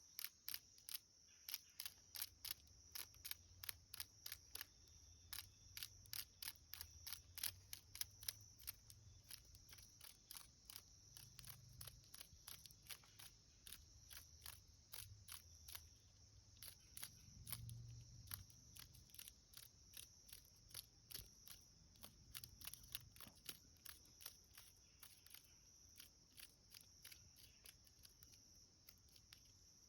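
A cicada's short distress buzzes, repeated irregularly two or three times a second and growing weaker toward the end, as a cicada killer wasp attacks it. A steady high-pitched insect drone runs underneath.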